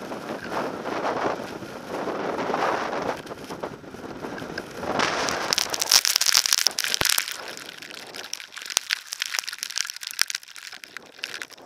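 Blizzard wind buffeting the camera microphone of a moving skier, with skis hissing and scraping over the snow. About five seconds in the wind rumble drops and a louder high hiss with crackles from the skis takes over, followed by quieter scattered clicks.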